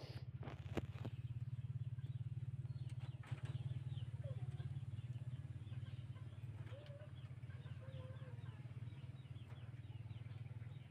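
Faint bird calls, chickens among them, over a steady low hum.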